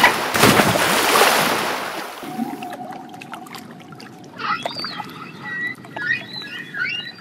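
Water splashing as dolphins leap out of and fall back into a pool for the first two seconds. From about four seconds in come underwater killer whale (orca) calls: high pitched calls that rise and fall, with a faint steady underwater hiss beneath.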